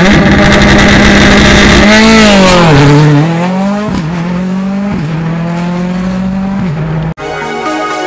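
Rally car's engine held at high revs on the start line. About two to three seconds in the car launches away, and the engine note bends up and then drops as the sound grows fainter. Music starts abruptly near the end.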